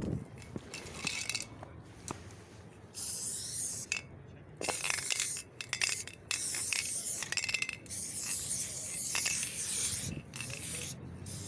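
Aerosol spray can (Sprayer bitumen spray paint) spraying onto a concrete wall in several hissing bursts of one to two seconds with short breaks between strokes. A few sharp clicks come in the first couple of seconds and again around the fifth second.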